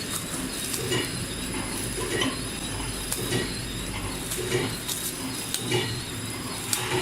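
Automatic putty packing machine running, with a metallic clack repeating about once a second as it goes through its extrude, cut and wrap cycle, over a steady whine and hum.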